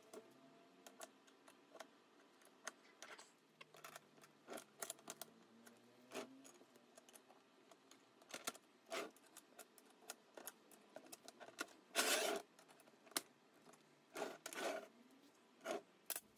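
Scattered metallic clicks, taps and clinks of a restored hydraulic trolley jack's steel parts being handled and adjusted by hand, with a louder sound lasting about half a second about twelve seconds in.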